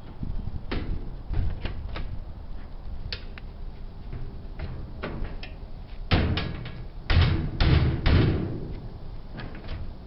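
Scattered clicks and knocks of top-load washer parts being handled and pushed into place during lid lock reassembly. A cluster of louder knocks comes about six to eight seconds in.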